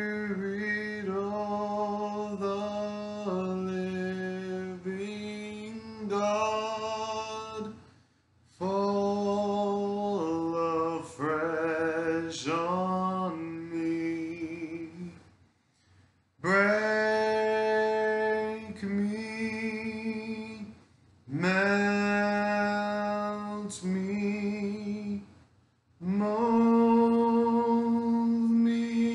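A man singing a slow hymn solo a cappella, in long held phrases of a few seconds with short breaths between.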